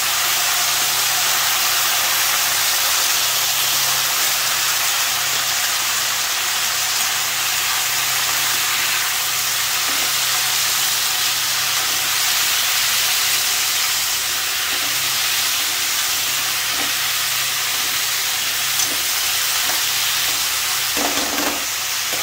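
Cubed potatoes and cauliflower florets sizzling steadily in hot mustard oil in a kadhai, just after going into the pan. There is brief stirring near the end.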